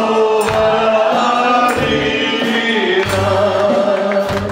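A man singing a love song into a handheld microphone through a PA, over amplified backing music with drum hits.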